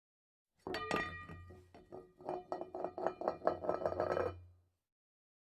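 A rapid run of light, ringing clinking strikes over a low hum, lasting about four seconds and stopping abruptly.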